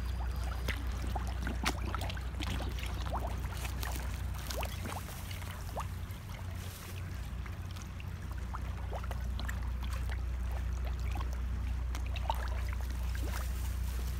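A crowd of carp gaping at the water's surface, making a really noisy, constant patter of wet slurping and sucking smacks, many short clicks overlapping one another. A steady low rumble runs beneath.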